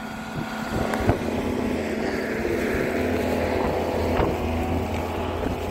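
Small snow-clearing vehicle's engine running with a steady low hum, with wind noise on the microphone.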